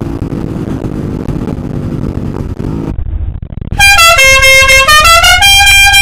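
Motorcycle engine running steadily at highway speed with wind noise. About four seconds in, a loud melodic horn plays a tune of stepping notes for about two and a half seconds.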